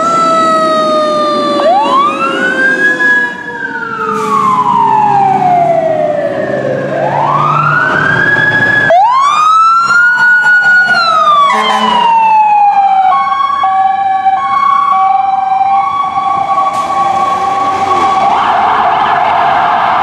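Fire engine and rescue ambulance sirens sounding as they respond. Wailing tones rise quickly and fall slowly, and alternating two-tone patterns follow. A loud, steady horn blast starts near the end.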